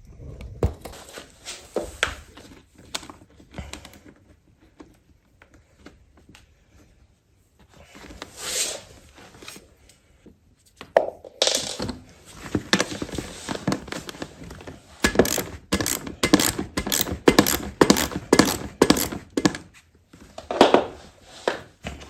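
Small screws and nuts being tightened into a plastic suitcase wheel hub by hand: scattered knocks and scrapes of the tool and parts, then a quick run of sharp clicks a few times a second in the second half.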